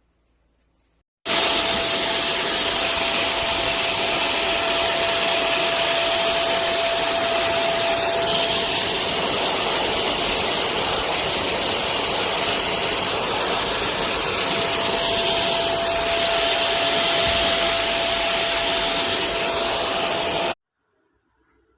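A 1600-watt wet and dry vacuum cleaner running steadily with a rushing noise and a high whine, starting abruptly about a second in and cutting off abruptly near the end.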